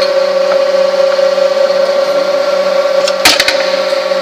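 Pliers milling machine running with a steady whine. A quick cluster of three or four sharp clicks comes a little over three seconds in.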